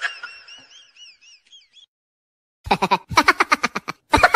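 Edited-in sound effect: a warbling, wobbling high tone that fades out over about two seconds, then a moment of dead silence, then a fast run of loud repeated pulses beginning near the end.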